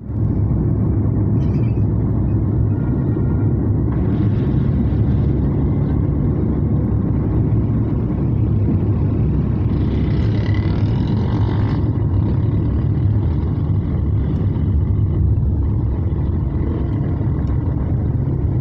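Steady low rumble of a car driving on a wet road, heard from inside the cabin, with a brief rise of higher hiss about ten seconds in.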